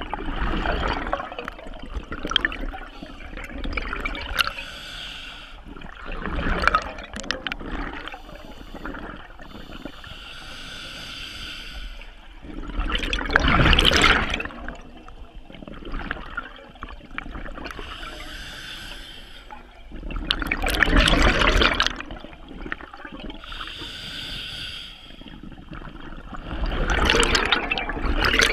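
Scuba diver breathing through a regulator underwater: a loud gush of exhaled bubbles about every seven seconds, with a softer hiss of inhaling between them.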